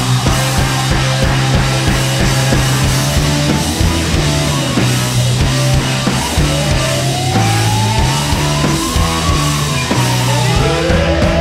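Rock music with drums and a bass line. From about six seconds in, a fire engine siren wails, rising and falling in pitch, over the music, and a second rise begins near the end.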